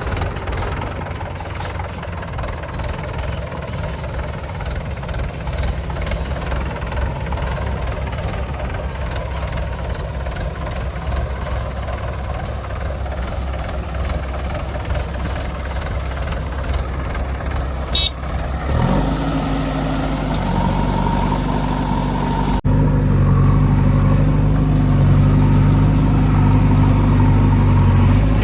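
Heavy diesel engines of a backhoe loader and tractor running steadily. A deeper engine hum with a clear pitch comes in about two-thirds of the way through and turns louder after a sudden break a few seconds later.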